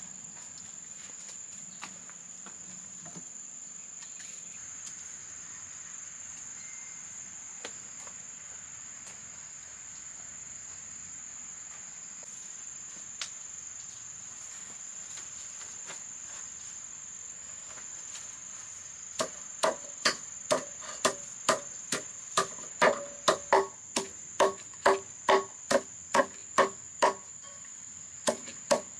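Insects keep up a steady high-pitched drone. About two-thirds of the way in, a quick run of sharp, ringing knocks begins, two to three a second, and it is much louder than the insects.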